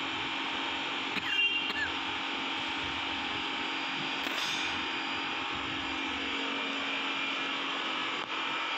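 A steady machine whir with a low hum, like a small motor running. About a second in, a brief metallic clink of chrome-plated parts is heard.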